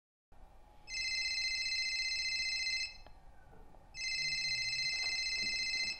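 Mobile phone ringing with a bell-like telephone ringtone: two rings, each about two seconds long, with about a second's pause between them.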